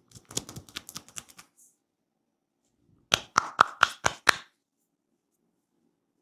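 Hands striking the head in rapid percussive massage slaps. A softer, quicker run of about ten comes first, then after a short pause a louder run of about eight.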